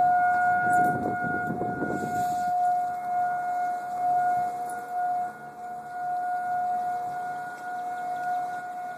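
A siren holds one steady tone throughout, with a rustle of noise in the first couple of seconds.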